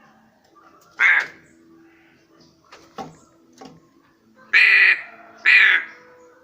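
Black crow cawing: one short harsh caw about a second in, then two louder, longer caws in quick succession near the end, with a sharp click in between.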